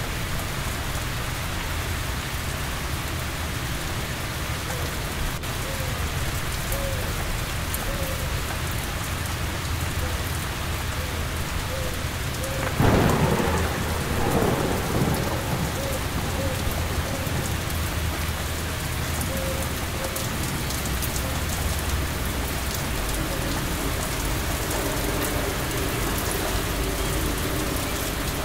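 Steady heavy rain falling, with a single clap of thunder about halfway through that rumbles on for a couple of seconds.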